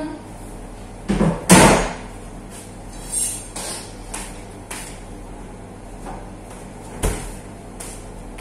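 Kitchen handling noises: a sharp knock and rattle about a second and a half in, then a run of lighter knocks and clicks, and one more knock near the end.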